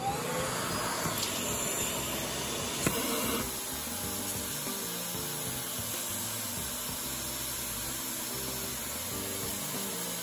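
A vacuum cleaner switched on, its motor whine rising briefly as it spins up, then running steadily as it supplies suction to a LEGO vacuum engine. There is a sharp click just before three seconds, and the hiss eases slightly a little later. Background music with a stepped melody plays underneath.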